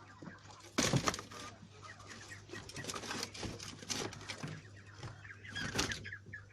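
Domestic chickens clucking on and off. There are louder sharp sounds about a second in and again near the end.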